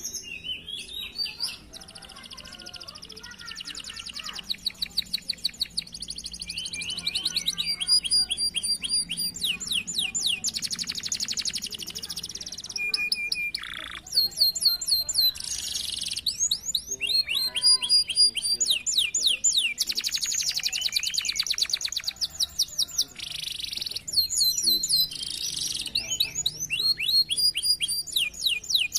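Domestic canaries singing continuously in long, fast rolling trills and rapid repeated high notes, the phrases changing every few seconds.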